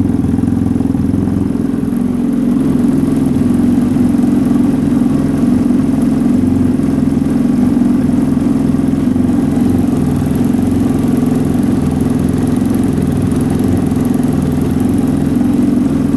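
Arctic Cat engine idling steadily through its factory muffler with the catalytic converter gutted out, giving a deep, noisier exhaust note. It gets a little louder about two seconds in.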